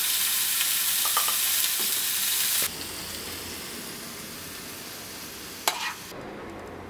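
Mushrooms sizzling as they fry in a pan, with a loud, even hiss that drops suddenly about two and a half seconds in to a quieter sizzle. A single sharp clink comes near the end.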